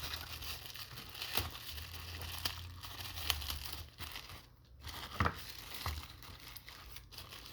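Packaging crinkling and rustling as a small product box is worked at with one hand, with a few scattered clicks and taps.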